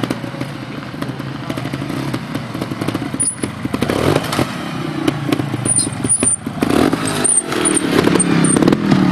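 Trials motorcycle engine revving up and down in short bursts as the bike is ridden up a rock section, with repeated knocks and clatter.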